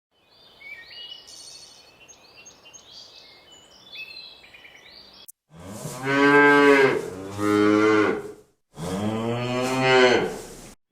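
Faint high chirps over a light hiss, then a cow mooing three times, each a long, loud moo of a second or more.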